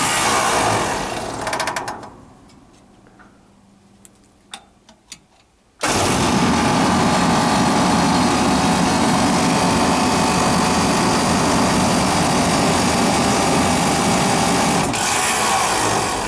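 Refrigeration condensing unit with a Copeland compressor running during pump-down, then stopping about two seconds in. A few faint clicks sound in the lull before the unit starts again abruptly about six seconds in and runs steadily, fading near the end.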